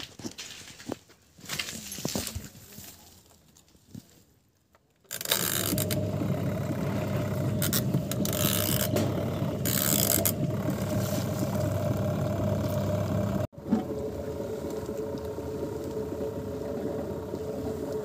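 A few clicks and handling noises, then about five seconds in a small 9 kg single-tub washing machine's motor starts and runs steadily with a low hum, churning water and clothes in the tub. It cuts out for an instant just past the middle and then carries on.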